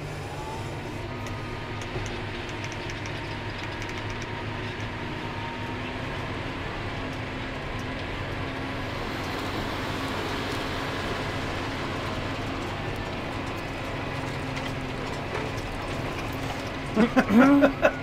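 John Deere 6250R tractor's six-cylinder diesel engine running steadily under load while pulling an eight-furrow plough through the soil, an even drone with no change in pitch.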